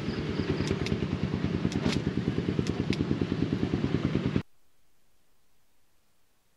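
A small engine running with a rapid, even pulse and a few sharp clicks over it, cutting off abruptly about four and a half seconds in to near silence.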